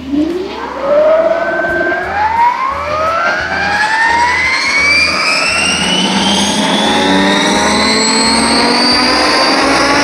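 Size-600 electric RC helicopter spooling up: its motor and rotor whine rises steadily in pitch over about seven seconds, then holds steady at flying speed. Gusty wind rumbles on the microphone underneath.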